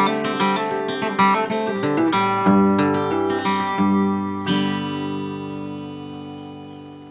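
Acoustic guitar music: a run of plucked notes, then a last chord about four and a half seconds in that rings on and fades out.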